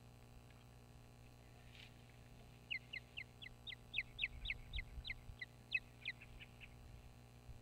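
Osprey calling: a rapid series of short, sharp whistled chirps, about four a second, lasting about four seconds.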